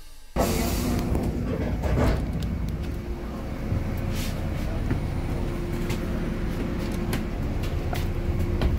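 Upper-deck interior of a double-decker bus with the engine running: a low rumble and a steady hum, with scattered clicks and rattles from the bodywork and fittings.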